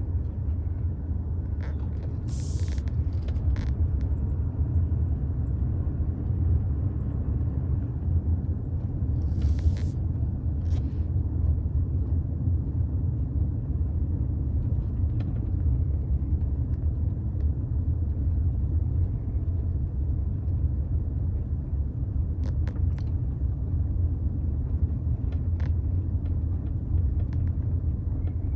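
Car interior noise while driving slowly: a steady low rumble of engine and tyres heard from inside the cabin, with a few short clicks and hisses.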